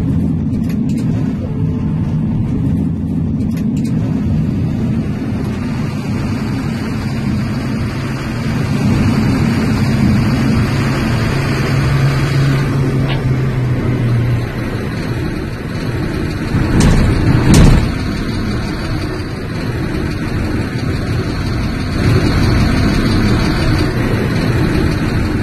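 Terberg Zagro road-rail shunting vehicle running steadily as it travels along the track. A steady low hum comes in for a few seconds around the middle, and there is a brief louder rumble about 17 seconds in.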